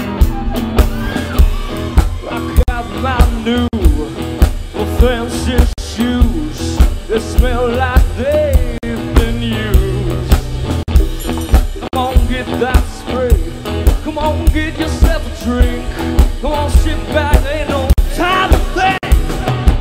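Live rock band playing, with drums keeping a steady beat under guitar, and a man singing a wavering melody into the microphone.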